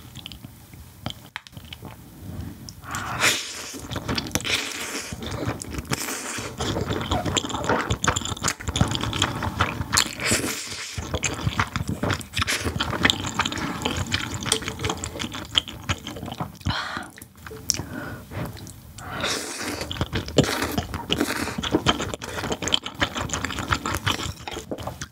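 Close-miked slurping and chewing of kalguksu noodles from whelk soup: wet mouth sounds and small clicks, busy and irregular from about three seconds in.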